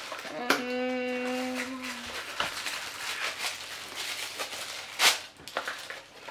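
Toy packaging and tissue paper rustling and crinkling as small doll-house pieces are unwrapped, with a sharp loud crinkle about five seconds in. Near the start a steady humming tone holds one pitch for about a second and a half.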